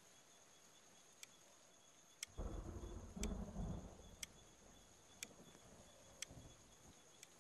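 Faint night ambience of crickets trilling steadily, with a sharp tick about once a second. About two seconds in, a low rumble swells for roughly two seconds and is the loudest sound.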